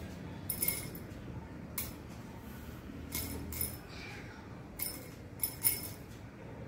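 Decorative pearl beads dropped one by one into a glass tumbler, clinking against the glass in about seven light, ringing clicks at irregular intervals.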